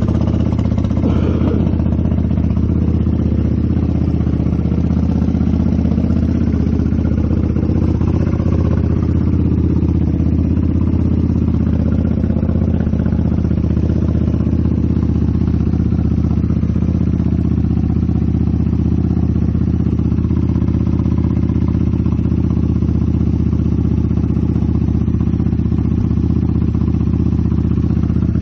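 Motorcycle engine running steadily at an even pitch, with a brief change in pitch about a second in.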